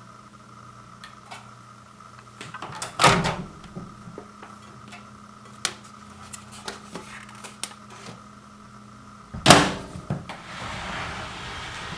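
Microwave oven running with a steady hum, with a loud clunk about three seconds in. Near the end a second loud clunk comes as the door opens, the hum stops, and a couple of seconds of softer noise follow.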